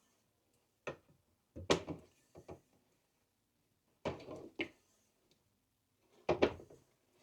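Spatula scraping and knocking against a pot while stirring melted chocolate, in about five short, irregular strokes with quiet between them.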